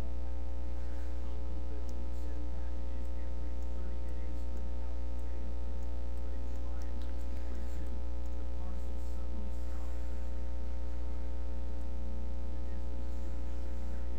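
Steady electrical mains hum on the recording: a low drone with a row of steady higher tones above it, unchanging throughout.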